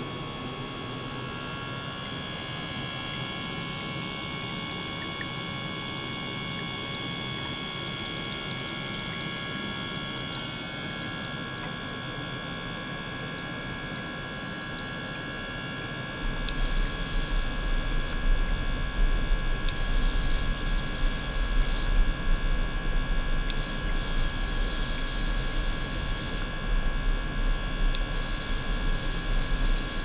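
Steady electrical hum with several high steady tones from small bench equipment. About halfway in, a louder low buzz starts as a handheld battery device is held to a stainless steel bowl of circulating water, and short bursts of hissing come and go every couple of seconds.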